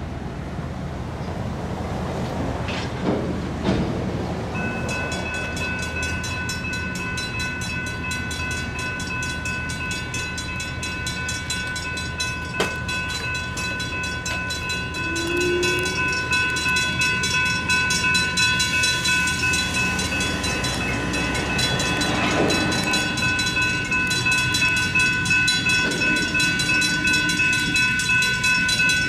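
Railroad crossing's GS Type 3 electronic bell starts about five seconds in and rings steadily as the crossing activates, growing louder partway through. Underneath is a low rumble.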